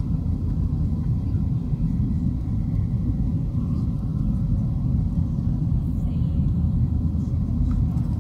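Boeing 737-800 in flight, heard from inside the cabin: a steady, deep rumble of engine and airflow noise.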